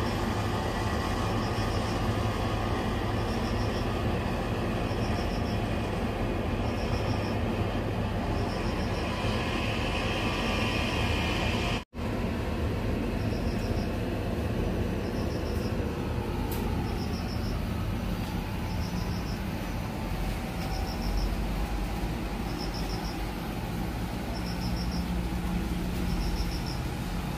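Steady rumbling background noise with a faint high chirp repeating about every second and a half. The sound cuts out for an instant about twelve seconds in, and a slow falling tone runs through the second half.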